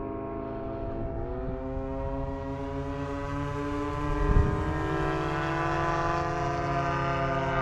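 Radio-controlled model airplanes in flight: a steady engine drone whose pitch rises about a second in, with a brief low thump a little past the middle.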